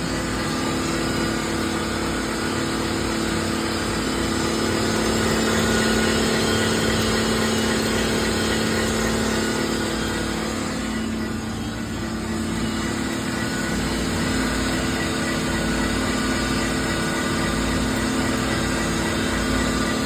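Hollymatic 180-A mixer grinder running steadily under its electric motor, a continuous mechanical hum with a few steady tones, dipping slightly about halfway through.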